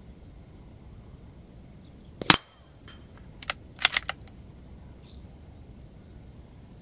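A single .22 LR shot from a CZ 457 Royal rifle strikes a hanging steel gong target a little over two seconds in: one sharp crack with a short metallic ring. It is followed by a few lighter clicks and clinks from the struck plate and its chains.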